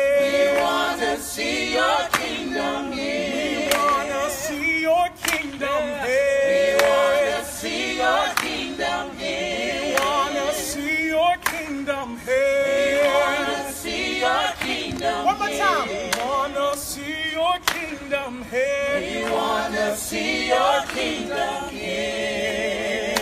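A group of voices singing a gospel worship song a cappella, with no instruments. The held notes waver.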